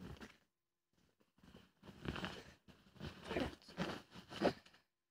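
Close handling noise: rustling and scuffing right at the microphone in several short bouts, busiest in the last three seconds.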